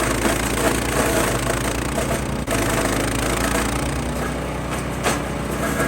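MechMaxx 6-inch wood chipper running steadily on its Kohler Command Pro 14 hp engine, with a single sharp knock about five seconds in.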